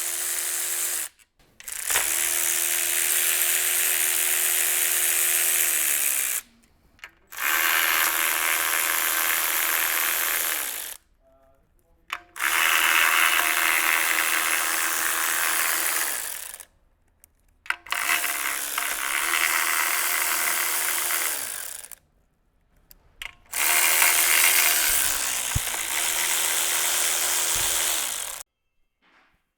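Cordless electric power tool spinning out engine bolts in about six runs of a few seconds each. Each run holds a steady whine, and its pitch falls as the tool winds down.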